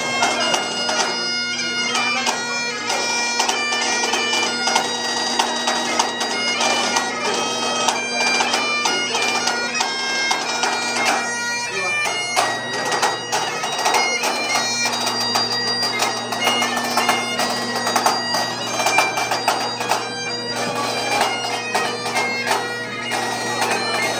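Bagpipes playing a tune over their steady, unbroken drones.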